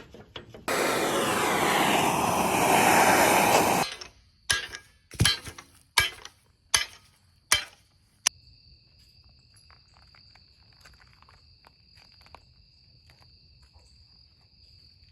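A loud rushing hiss for about three seconds, then about seven sharp metallic knocks over the next four seconds, then a faint steady insect chirping.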